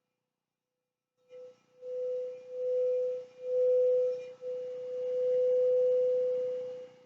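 A singing bowl tuned to the note B sounds a single clear, steady tone. It begins a little over a second in and swells and dips several times, with a faint hiss beneath it, and is still ringing at the end.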